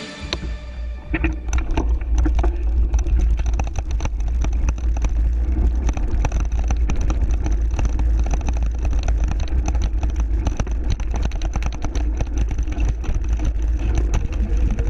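Mountain bike riding audio picked up by an action camera mounted on the rider: wind buffeting the microphone as a low, steady rumble, with tyres crunching over gravel and dirt and the bike rattling. It builds up about a second in as the bike gets rolling.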